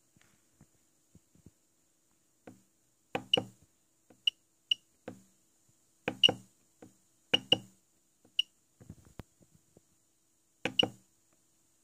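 Rotary encoder knob on a homemade Arduino menu board clicking as it is turned and pressed, each step answered by a very short high beep from the board's piezo buzzer. The clicks and beeps come singly and in quick pairs at uneven intervals.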